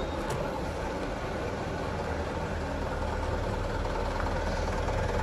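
Mitsubishi truck's diesel engine idling, a steady low rumble.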